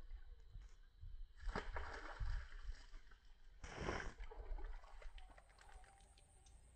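Water splashing twice, a short splash about a second and a half in and a louder one near four seconds, as a fishing rod is worked at the pond's edge, over a low rumble.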